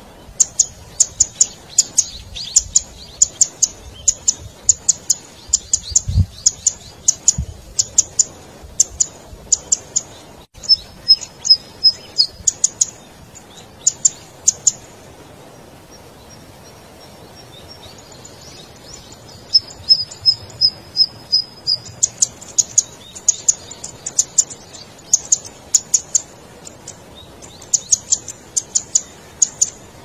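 Golden-headed cisticola calling: a run of sharp, high clicking notes, two or three a second. Around the middle the clicks pause, and two short series of clearer, evenly spaced notes are heard.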